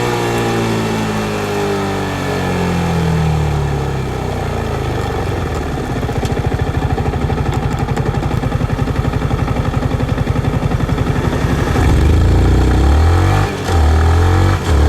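Yamaha MT-15 motorcycle's 155 cc single-cylinder engine: the revs fall away as the bike slows, settle into a low, even pulsing idle, then climb as the bike pulls away, with two brief breaks near the end as it shifts up through the gears.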